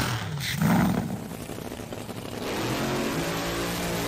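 Drag-racing engine running, with a short swell under a second in, then settling to a steady drone.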